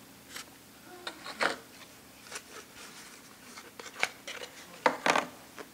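Hands opening a small cardboard essential-oil box and taking out the glass bottle: scattered light clicks, scrapes and rustles, with sharper taps about four and five seconds in.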